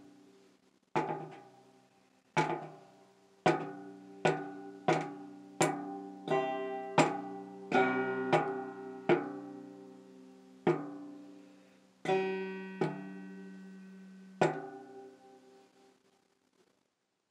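Ibanez five-string banjo's open, unfretted strings being struck or brushed at irregular intervals, about fifteen single strums that each ring and fade, with no melody or steady rhythm.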